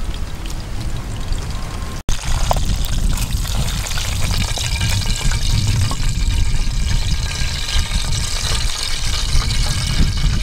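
Hot oil sizzling and crackling around a slab of pork belly frying in a metal pot, much louder after a cut about two seconds in, with oil dripping back into the pot.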